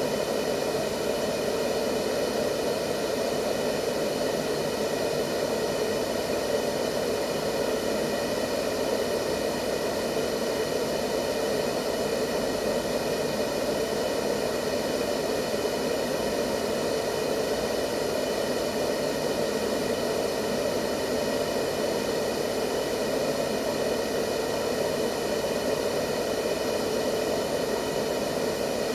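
Steady white noise played as a baby sleep aid: an even, unchanging rushing sound, deepest and strongest in the low-middle range, with faint steady tones above it.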